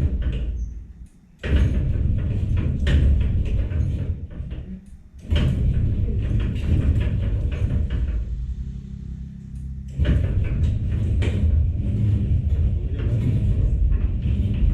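Metal sliding gate rolling along its track: a low rumble with rattles and clicks, which drops away briefly about a second in and again around five seconds.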